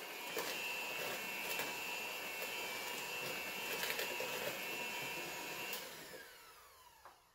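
Electric hand mixer running steadily, its beaters whisking thick cake batter in a bowl, with occasional clicks. About six seconds in it is switched off and its whine falls away as the motor spins down.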